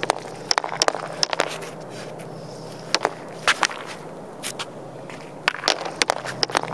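Hockey stick blade clacking on a puck and a plastic shooting pad in quick, irregular taps while stickhandling, in short bursts with pauses between, a few taps sharper than the rest.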